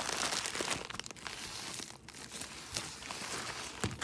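Plastic bubble mailer crinkling and crackling as it is handled and opened, loudest in the first second and then softer, with scattered sharp crackles.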